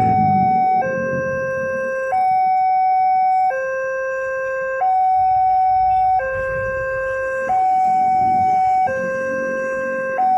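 Railway level-crossing electronic warning alarm from the crossing's pole-mounted loudspeaker, sounding two steady tones that alternate about every 1.3 seconds, the higher tone louder than the lower. It signals that a train is approaching and the barrier is down.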